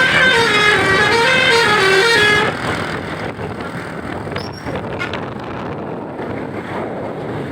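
Basuri multi-tone bus horn playing a telolet melody of short stepped notes, cutting off about two and a half seconds in. Steady road and engine noise carries on after it.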